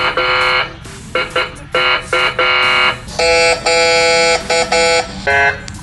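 Whelen emergency-vehicle electronic air-horn tone, blasted in a rapid series of short honks with a longer held blast in the middle.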